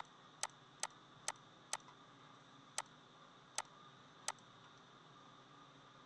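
Computer mouse clicking: about eight sharp single clicks at uneven intervals, quicker at first, the last about four and a half seconds in, over a faint steady hiss.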